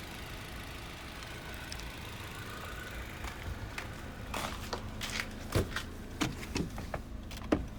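Honda Civic turn-signal or hazard flasher ticking, about two clicks a second, starting about four seconds in, over a steady low hum from the car.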